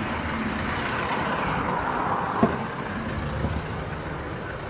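Steady vehicle rumble in the background, with one sharp click about halfway through.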